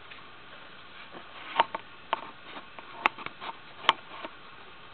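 Scattered light clicks and taps of a camera being handled and repositioned by hand, with a faint steady background between them.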